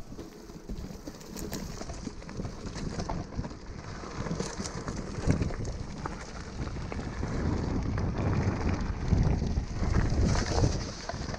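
Mountain bike rolling over a rough dirt trail strewn with dry leaves and twigs: tyres crunching, the bike rattling with many small knocks over the bumps, and wind buffeting the microphone. It grows louder in the last few seconds.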